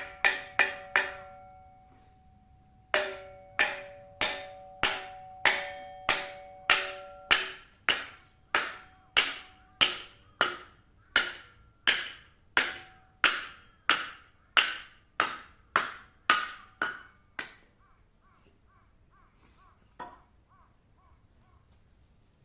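Firewood being split: a quick run of sharp knocks, a pause of about two seconds, then a long, evenly paced series of sharp knocks, about three every two seconds, with a ringing tone under the strikes for the first few seconds, fading and stopping near the end.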